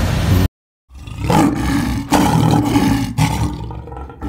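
Lioness roaring in a run of deep, rough calls, with three strong pulses about a second apart. Just before them, a brief cut drops the audio to silence.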